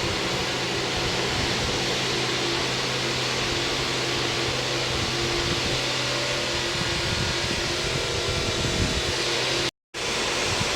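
A JCB machine's diesel engine running steadily with a loud, even hum, cutting out for a split second near the end.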